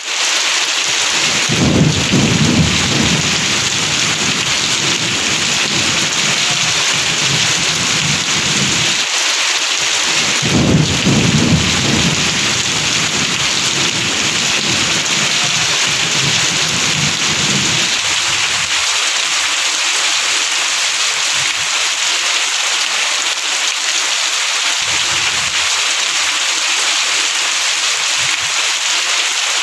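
Heavy rain falling steadily. Two long rolls of thunder come through it: one starts about a second and a half in, and the other about ten seconds in. Each rumbles for around seven seconds.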